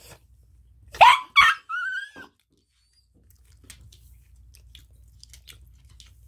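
Small dog yipping twice, sharply, about a second in, then giving a short rising whine. After that come only scattered faint ticks and clicks.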